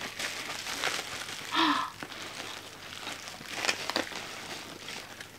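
Bubble wrap rustling and crinkling as hands rummage in a packed box and pull apart the wrapping around an item, with a few sharper crackles.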